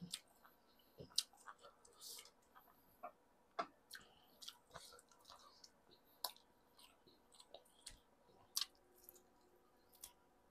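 Close-miked mouth sounds of a man eating stewed pork ribs off the bone by hand: irregular chewing, lip smacks and short clicks.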